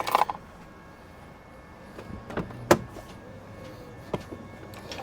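A few sharp knocks over a low steady background. The loudest comes about two and a half seconds in.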